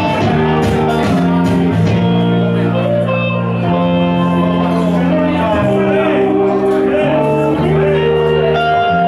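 Live electric guitar and electric bass playing a song together, the bass holding long notes that change about every second, the guitar playing over it with some bent notes.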